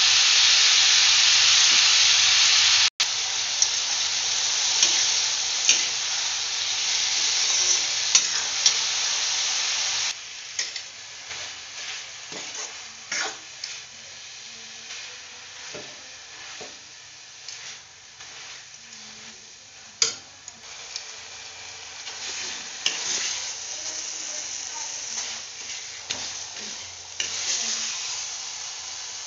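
Vegetable strips and sugar sizzling loudly as they fry in a metal pan, with a spoon stirring and clicking against the pan. About ten seconds in, the sizzle drops away to a quieter simmer, and from then on the spoon's scrapes and taps on the metal stand out; the sizzle picks up a little again near the end.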